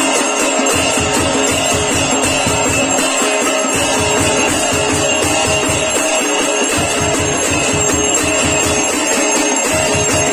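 Temple aarti percussion: brass gongs and bells struck rapidly and continuously, with a steady drum-like beat underneath.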